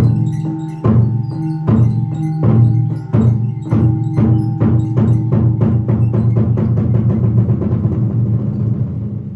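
Traditional Vietnamese water puppet theatre ensemble playing live percussion: deep-ringing drum strikes start about a second apart and speed up steadily into a fast roll, fading away at the very end.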